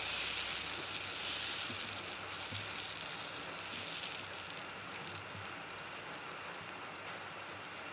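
Dosa batter sizzling on a hot, oiled dosa griddle as a ladle spreads it outward in circles; the hiss grows gradually quieter as the batter sets.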